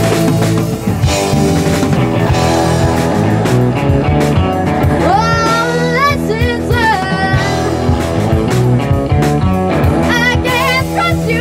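Live rock band playing through a PA: drum kit, electric guitar and bass under a steady beat. A woman's lead vocal comes in about halfway through and again near the end.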